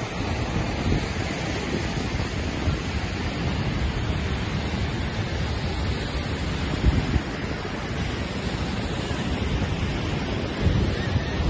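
Ocean surf breaking on the beach, a steady rushing noise, mixed with wind buffeting the phone's microphone in a few low gusts.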